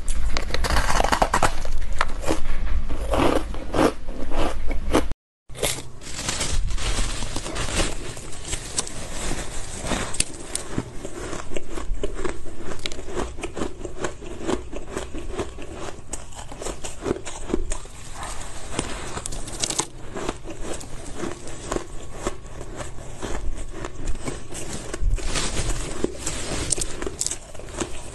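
Shaved ice crunching as it is bitten and chewed, a dense crackle of many small crunches, with a brief break of silence about five seconds in before the crunching resumes.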